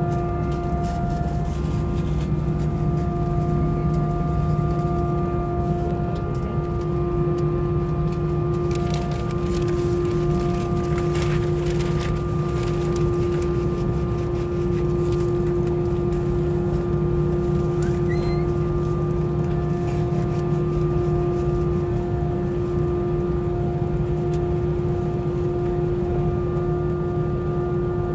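Steady drone of an airliner cabin: an even rush of noise with several constant humming tones from the aircraft's engines and air systems. A brief patch of rustling handling noise comes about ten seconds in.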